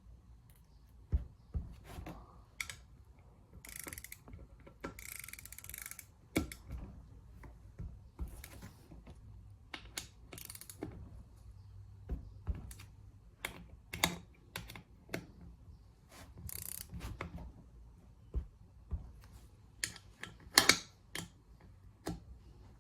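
Ratchet torque wrench clicking and ratcheting in short irregular bursts while the cylinder head bolts of a Honda GX200 clone engine are tightened, with a few sharper metal clicks near the end.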